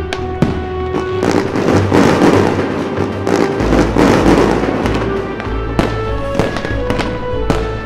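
Many firework bangs and dense crackling from firecrackers, over background music with held notes and a low bass.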